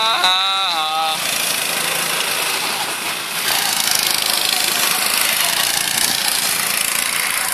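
Go-kart engines running on the track. One engine's note rises and falls in pitch about a second in, then gives way to a steady, dense engine noise as karts pass close by.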